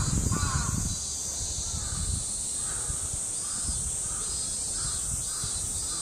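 Crows cawing: a few loud caws at the start, then a run of fainter caws about every half second.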